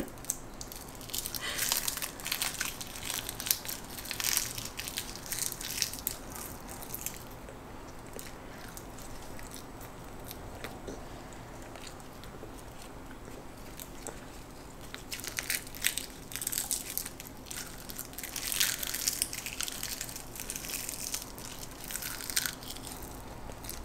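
Crisp seaweed snack sheets crackling and crunching as small children bite and chew them, in two spells of a few seconds each.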